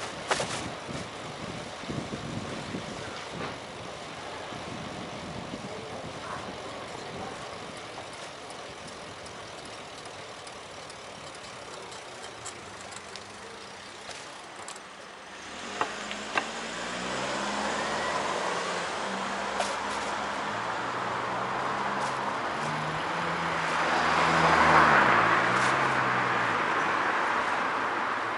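Wind and road noise from a moving bicycle, which falls away about halfway through. Then a motor vehicle's engine runs close by, changing pitch in steps, and traffic passes, loudest near the end.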